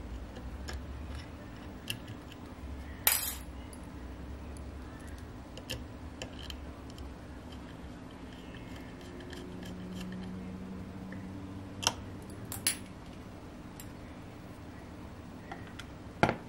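Scattered small clicks and taps of metal tweezers working on the 3D-printed plastic parts of an RC car's chassis and axle. Near the end a single louder knock as the car is set down on a wooden tabletop.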